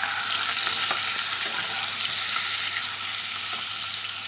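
Fish heads frying in hot mustard oil in a kadai, sizzling steadily, with light scrapes of a spatula turning them.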